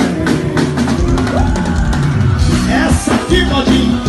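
Live forró band music with a steady drum kit beat, bass and keyboard.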